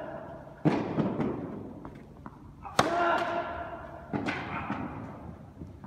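Tennis balls struck by rackets in a baseline rally, three hard hits about one and a half to two seconds apart, with fainter ball bounces between. Each hit rings on in the echo of a large indoor tennis hall.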